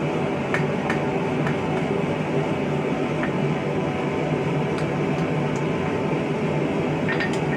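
Forge running with a steady rushing roar, with a few faint light clicks over it.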